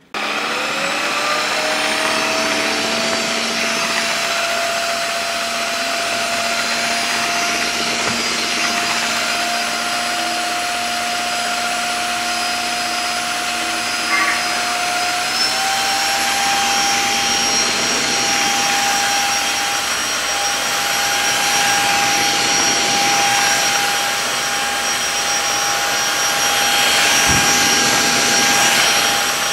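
Tineco cordless wet-dry floor washer running as it is pushed over a hard floor: a steady motor whine that spins up at the start and steps a little higher in pitch about halfway through.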